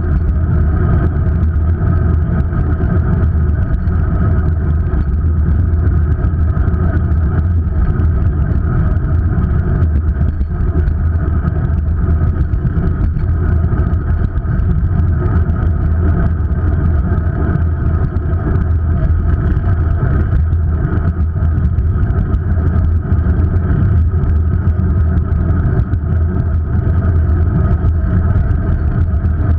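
Steady wind and road rumble on the microphone of an action camera riding along a bike lane, heavy in the low end and unchanging.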